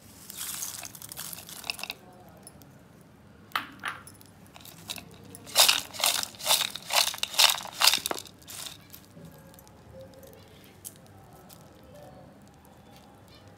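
Crisp deep-fried ivy gourd strips and peanuts tossed in a bowl to mix them, making a dry, crunchy rustle. A brief rustle comes first, then a run of about six quick, louder shakes in the middle.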